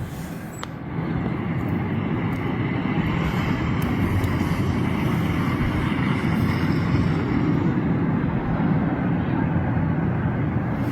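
Strong blizzard wind, a steady rushing noise that grows louder about a second in and then holds.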